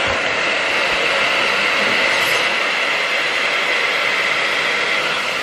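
Hair dryer running steadily: a loud, even rushing blow with a high whine in it.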